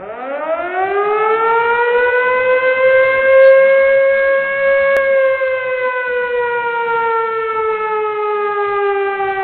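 A siren wail: one pitched tone that rises steeply over the first three seconds or so, holds, then slowly sinks.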